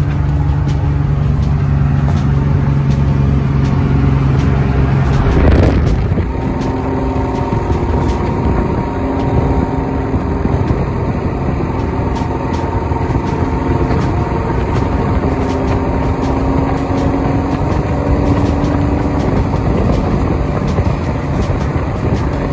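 A classic Nissan Skyline 'Hakosuka' cruising on the road. At first its engine is heard from inside the cabin as a strong low hum. About five seconds in there is a rush of wind over the microphone held out of the window, and after that the engine note, tyre noise and wind come from outside the car.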